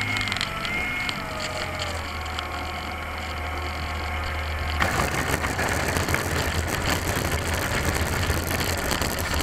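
Electric motor of a Slow Stick model plane, heard from a camera on the plane, whining with a wavering pitch, then throttled back and fading about two seconds in. About five seconds in the plane touches down, and a rough scraping rattle starts as it runs across grass and dirt.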